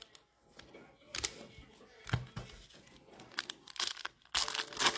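Plastic packaging being crinkled and torn in short, irregular bursts, loudest near the end.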